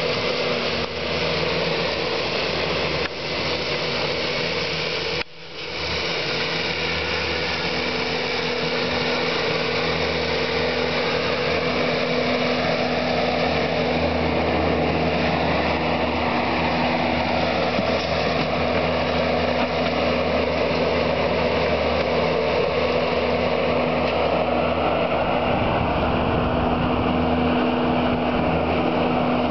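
Bobcat skid-steer loader's diesel engine running steadily under load, with a higher whine that rises and falls as the machine works. The sound breaks off briefly about five seconds in.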